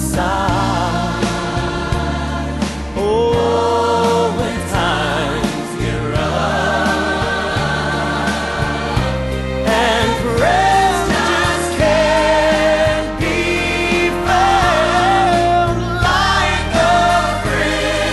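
A song with singing voices over instrumental backing.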